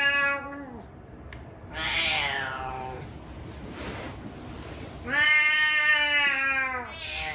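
Domestic cat meowing repeatedly: a short meow at the start, a second meow that falls in pitch about two seconds in, a long meow of nearly two seconds past the midpoint, and another beginning near the end.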